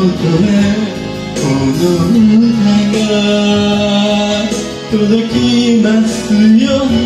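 A man singing a slow melody with long held notes over instrumental accompaniment.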